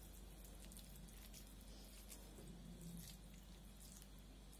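Near silence, with faint soft wet clicks and pats of bare hands shaping moist minced pork and cabbage mixture into patties.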